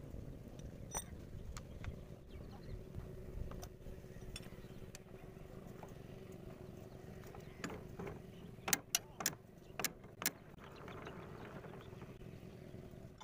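Steel tools clinking against the power tiller's clutch belt pulley and hub as they are worked in to free the pulley. The clinks are sharp and scattered, with a quick run of about six louder ones about two-thirds of the way in, over a faint low rumble.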